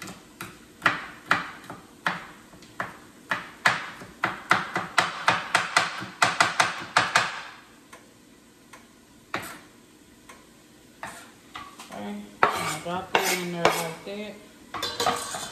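Chef's knife chopping onion on a wooden cutting board: a run of sharp knocks of the blade on the board, quickening, for about seven seconds, then a pause. Near the end, knocks and scraping as the chopped onion is pushed off the board into a steel stockpot.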